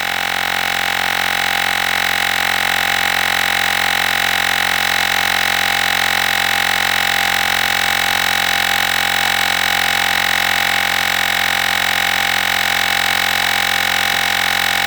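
Olgeo M7 battery-powered portable air compressor running steadily with a constant buzzing whine while it pumps air into a flat car tire.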